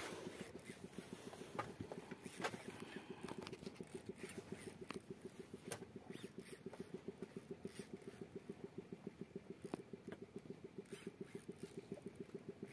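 A small engine idling steadily, a rapid low pulsing of about five to six beats a second, with a few sharp clicks over it.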